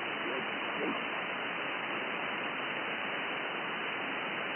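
Steady shortwave receiver hiss: empty 15 m band noise from a FlexRadio Flex-3000 in SSB mode, its sound cut off sharply above about 3 kHz by the receive filter.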